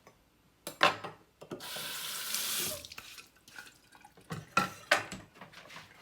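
Kitchen tap running into a sink for about a second. Sharp knocks and clatter come just before it and a couple of seconds after it.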